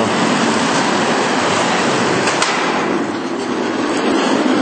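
Electric drive motor and gears of a 1/10 scale toy radio-control car running, its plastic tyres rolling on a wooden floor: a steady mechanical running noise. There is a single sharp click a little past two seconds in and a brief dip in level about three seconds in.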